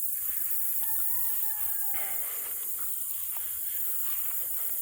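A rooster crowing once, a faint drawn-out call starting about a second in, over a steady high hiss of insects.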